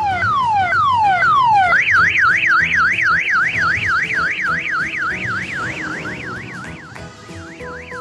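Electronic vehicle siren sound effect: a string of falling yelps, about two a second, switches about two seconds in to a fast up-and-down warble, about three cycles a second, which drops back near the end.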